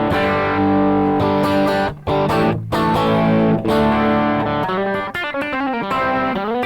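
Electric guitar played through a Rad Custom Shop Valkyrie overdrive pedal with its Shine (brightness) knob turned down to 2.5. Ringing chords for the first few seconds, then a single-note phrase with string bends near the end.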